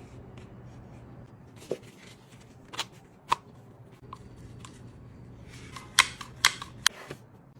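Scattered sharp clicks and taps from small tools and phone parts being handled during an iPhone screen repair, the loudest cluster near the end, over a steady low hum.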